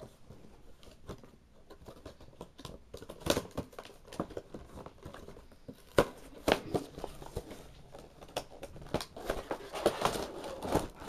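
Action-figure packaging being handled and pulled apart: irregular crinkling rustles and sharp plastic clicks, the loudest about six seconds in, as the figure is worked free of its box and twist ties.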